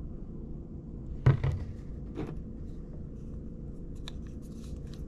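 Plastic paint bottles being handled on a desk: two knocks about a second in, then another, as a bottle is put down, followed by light plastic clicks and rubbing. A steady low hum runs underneath.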